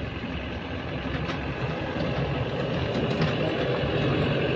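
Engine of a small tourist road train's tractor unit running steadily as it pulls its carriages around a bend, with rolling wheel and road noise, heard from aboard a carriage. It grows slightly louder toward the end.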